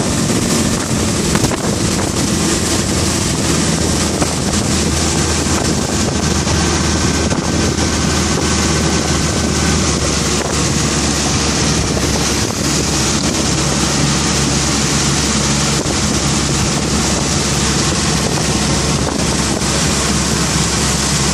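Mercury outboard motor running steadily at speed, heard close, with wind buffeting the microphone and the rush of the boat's wake.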